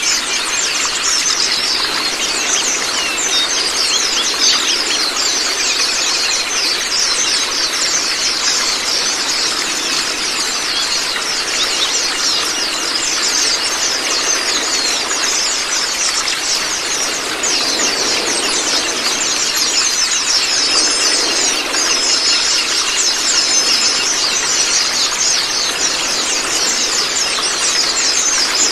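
A flock of white-eyes (Zosterops) twittering all together in a dense, unbroken stream of fast, high chirps, over a steady rush of running water.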